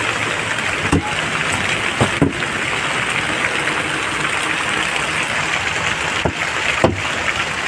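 Sharp chops of a broad chopping knife through chicken into a wooden log chopping block: one about a second in, two close together around two seconds, and two near the end, over a steady background hiss.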